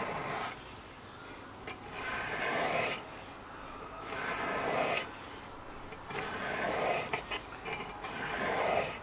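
Whetstone on a fixed-angle knife sharpener's guide rod drawn along the edge of a steel kitchen knife: about five rasping strokes, roughly one every two seconds, each swelling and then stopping.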